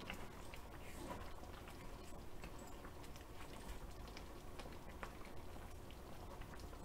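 A wooden spoon stirring a pot of spicy braised chicken stew, giving faint soft clicks and wet splashes over a low hum.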